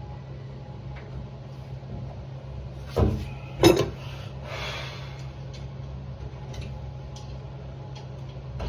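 Two sharp knocks a little under a second apart, then a brief scraping rustle, as the metal door handle hardware is fitted into the bored door. A steady low hum runs underneath.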